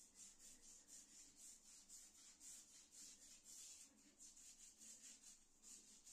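Faint brush scrubbing with quick, even back-and-forth strokes, several a second.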